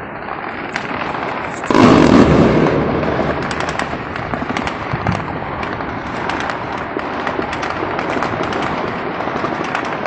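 A loud explosion about two seconds in, its rumble fading over a second or so, then a continuous crackle of gunfire, many sharp pops.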